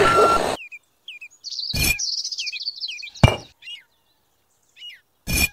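Birds chirping in quick, repeated calls, with three short knocks or clinks of small clay bricks being set down on a wooden board. A toy truck's engine noise and reversing beeps cut off about half a second in.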